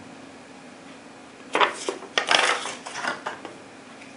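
Hands handling a paper instruction sheet and a rubber grip's packaging on a tabletop: rustling with light knocks and clatter, in two short spells from about a second and a half in.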